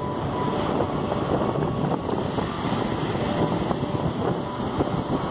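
Ocean surf: waves breaking and foam washing up a sand beach, with wind buffeting the microphone.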